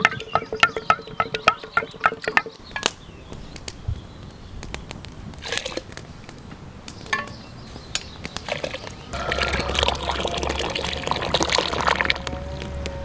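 A wooden spoon beats cream and eggs in a clay bowl, tapping rapidly against the bowl for about two and a half seconds. A quieter stretch with occasional crackles of a wood fire follows, then liquid is poured for about three seconds near the end.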